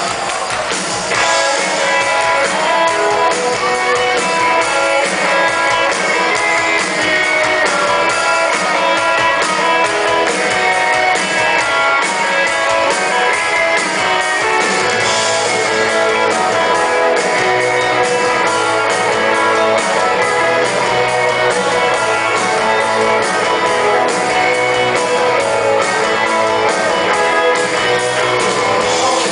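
Live rock band playing, with strummed electric guitars over drums, starting in earnest about a second in. No singing is heard in this stretch, and a bass line fills out the low end from about halfway.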